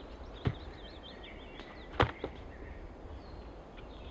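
A songbird singing a quick run of high warbling notes over a steady outdoor background, with two sharp knocks, one about half a second in and a louder one about two seconds in.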